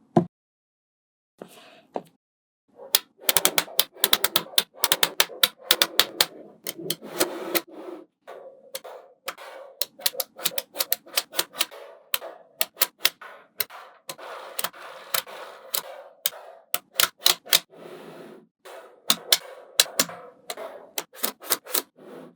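Small magnetic balls snapping together with sharp clicks, many in quick, irregular succession from about three seconds in, after a few scattered clicks.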